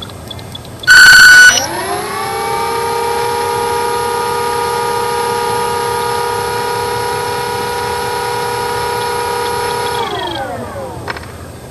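A short, very loud beep about a second in, then the E-flite Power 25 brushless electric motor and propeller of an RC plane held still on the ground spinning up with a rising whine, running at a steady pitch, and winding down with a falling whine about ten seconds in.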